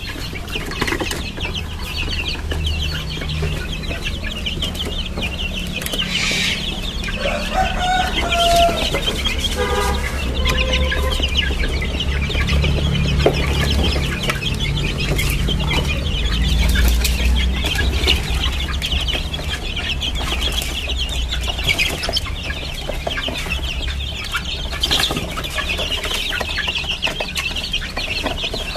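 A brood of young Bangkok gamefowl chicks peeping continuously in a heated brooder box, with a few lower chicken calls about seven to eleven seconds in. A steady low rumble runs underneath.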